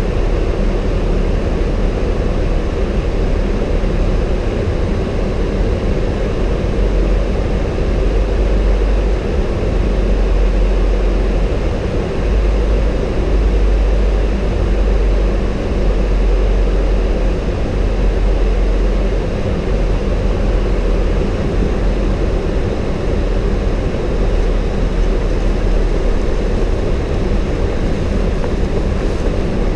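Steady flight-deck noise of a Boeing 737-800 descending on approach: a constant low rumble with a hiss of airflow and engines, heard inside the cockpit.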